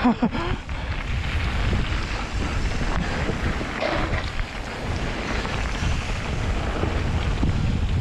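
Wind buffeting the camera's microphone as a mountain bike descends a dirt forest trail. The tyres rumble over the ground and the bike knocks and rattles over bumps. Brief squeaks come right at the start and again about four seconds in.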